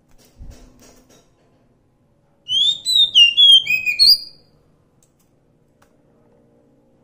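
Oriental magpie-robin singing: one burst of quick, clear whistled notes that slide up and down, lasting about two seconds.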